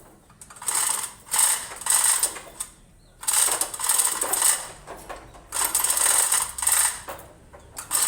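A hand-worked metal ratcheting mechanism, clicking and rattling in repeated strokes of about a second each, with short pauses between them.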